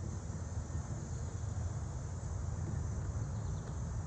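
Steady outdoor background: a high insect chirr over a low rumble.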